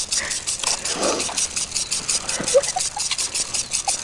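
Twiggy branch dragged along a concrete sidewalk: a rapid, even scratching of twigs on the pavement, with a few short squeaks over it.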